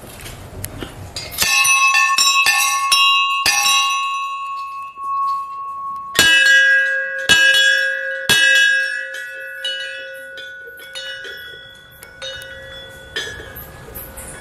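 Hand-rung hanging temple bells. One bell is struck several times in quick succession about a second and a half in. A lower-pitched bell is then struck three times about a second apart from about six seconds in, and its ring dies away slowly.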